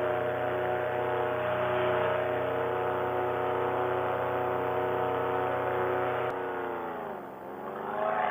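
Paramotor engine and propeller running at steady high power during the climb after takeoff. About six seconds in, the engine note drops sharply as the throttle is eased off, then rises again near the end.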